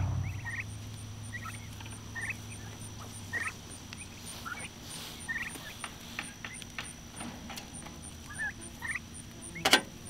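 Domestic turkeys calling with short, rising peeps, one every half second to a second. A couple of sharp knocks come near the end.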